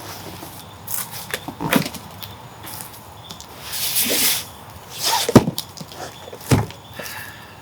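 Cardboard box and packing being handled as an item is pulled out: short scrapes and rustles with several knocks, the loudest about halfway through.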